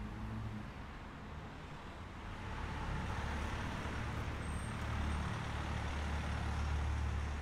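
A motor vehicle's engine rumble and road noise growing louder from about two and a half seconds in, as the vehicle comes close, with a brief high squeak near the middle.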